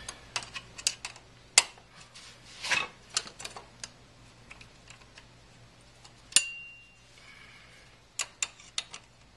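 Socket wrench clicking and clinking in irregular short runs as a bolt is tightened through a steel shark fin into a rivet nut in the swing arm. One sharper metallic clink with a brief ring comes about six seconds in.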